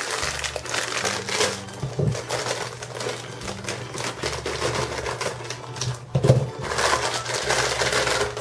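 Plastic packaging crinkling and rustling in a steady run of small crackles as a bag is handled and opened, with a thump about six seconds in.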